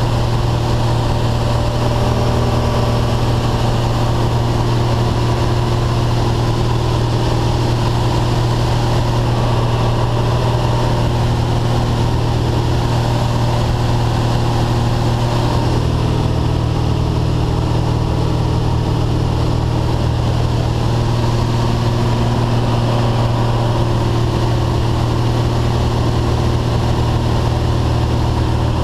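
Small jump plane's engine and propeller droning steadily, heard from inside the cabin in flight, with a slight change in tone about halfway through.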